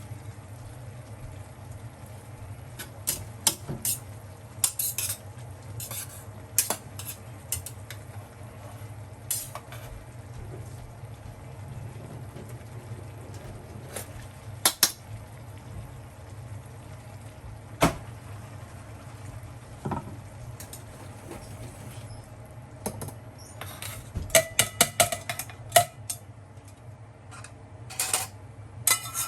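Cooking utensils clinking and scraping against Snow Peak metal camp cookware in scattered knocks, with a quick run of ringing clinks near the end, over a steady low hum.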